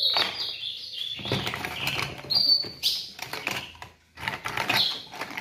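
Plastic bird drinkers and feeder cups clicking and clattering against each other as they are handled in a plastic basket, with a few short bird chirps.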